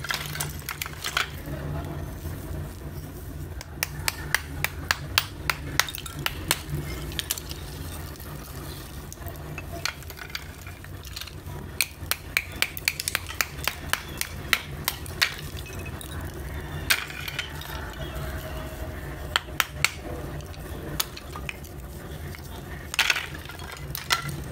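Brittle slabs of roasted fuller's earth (multani mitti) tapped with a small hammer and shifted by hand, giving quick runs of sharp clinking, cracking taps, over a steady low hum.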